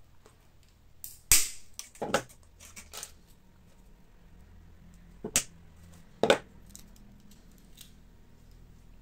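Steel coil spring being cut to length with pliers: about five sharp snaps spread over several seconds, the loudest about a second in.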